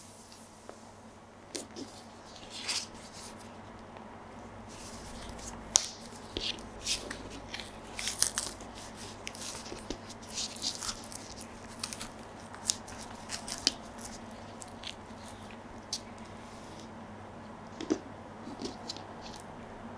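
A ripe banana being peeled by hand: the peel tears away in a series of short crackling rips. Near the end, a soft thump as the peeled banana is set down on the floor.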